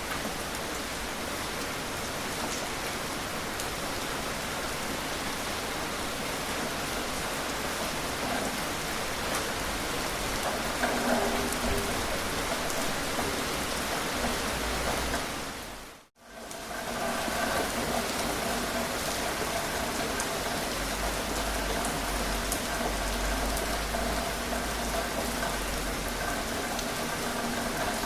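Steady rain falling, an even hiss. About halfway through it briefly fades out and back in, and after that a faint steady hum sits under the rain.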